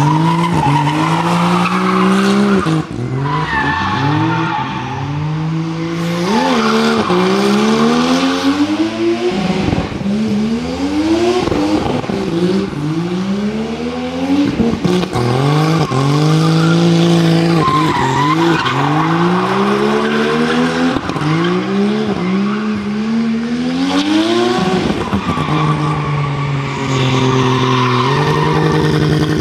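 Nissan Skyline drift car sliding on asphalt, its engine revving hard in repeated rising sweeps that drop off sharply every couple of seconds, over continuous tyre squeal.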